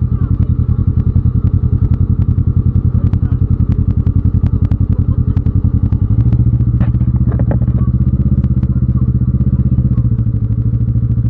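Yamaha Raptor 700R ATV's single-cylinder engine running steadily at low revs with an even pulsing beat, getting louder about six seconds in. Scattered light clicks sound over it.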